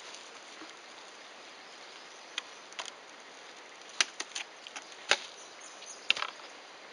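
A scattering of short, sharp wooden clicks and knocks, the loudest about four, five and six seconds in: painted wooden swing slats being handled, knocked together and set down on the ground.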